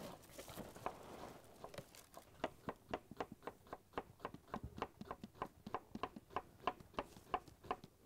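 Kitchen knife dicing an onion on a wooden cutting board: a quick, even run of short chopping taps, about four or five a second.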